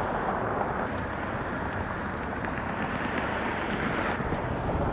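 Wind blowing over the microphone: a steady rush with a rumbling low end.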